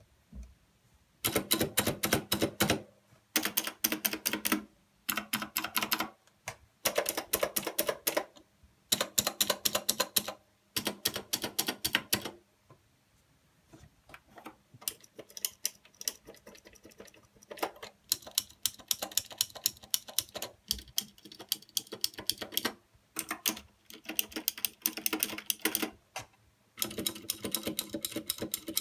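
Typing on a Royal Kludge RK61 keyboard with Royal Kludge blue switches, which are clicky: fast runs of clicking keystrokes in bursts of one to two seconds with short pauses between. About halfway through the keystrokes turn slower, lighter and scattered, and fast bursts come back near the end.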